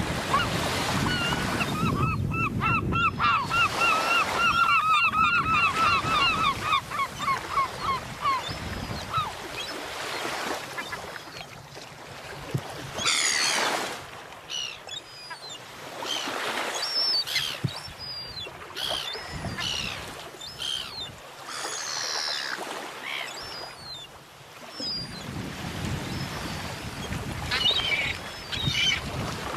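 Water birds calling over a steady wash of waves and wind: one bird gives a long rapid series of repeated notes over the first eight seconds or so, and short falling calls follow throughout.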